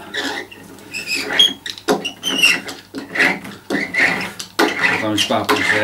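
Hand roller rolled back and forth over a vinyl decal, rubbing and squeaking in irregular strokes as it presses air bubbles out from under the decal.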